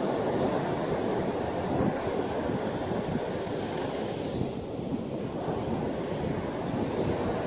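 Ocean surf breaking and washing up a beach, a steady roar of waves with some wind.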